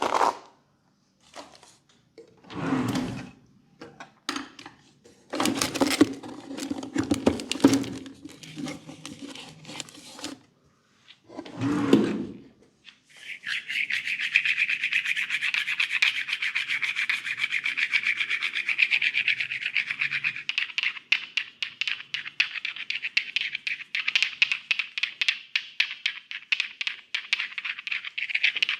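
Hands rubbing and scratching through hair and scalp in a head massage. First come a handful of separate rubbing strokes, then from a little under halfway a fast, continuous scratchy rustle.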